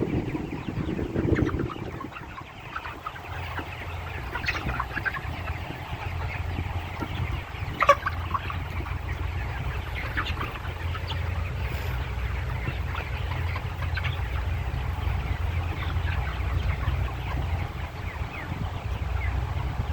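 A flock of broiler chickens clucking and calling in scattered short calls, over a steady low rumble. A single sharp knock sounds about eight seconds in.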